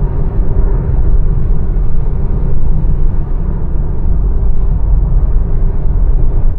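Subaru Forester driving along a city street, heard from inside the cabin: a loud, steady low rumble of tyre, road and engine noise.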